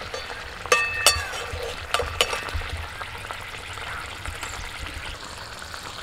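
Metal ladle stirring a steel pot of ginger catfish curry on the fire, the curry sizzling steadily. Two ringing clinks of ladle on pot about a second in, then a few lighter knocks.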